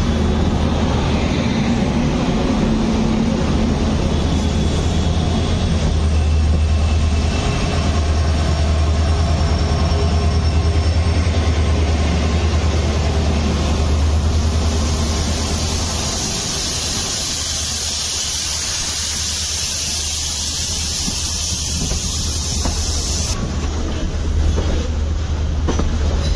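Indian Railways ICF passenger coach running along the track, heard from its open doorway: a steady low rumble of wheels on the rails and wind. About fifteen seconds in, a loud high hiss comes up while the rumble eases, and the hiss cuts off suddenly about eight seconds later.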